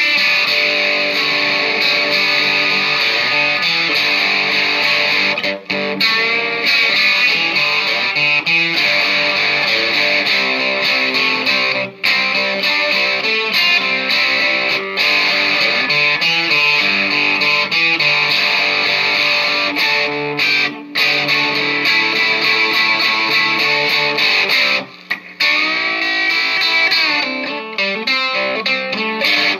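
Electric guitar being played continuously, with a few brief pauses.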